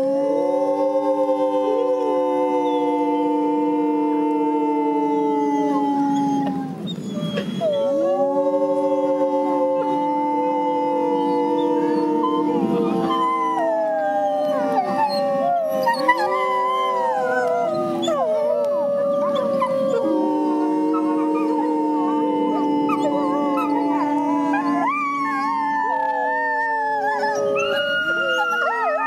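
People and 16-week-old Hudson Bay wolf pups howling together in a chorus. Several long notes are held at once, breaking off briefly about six seconds in, and higher, wavering howls join over the second half.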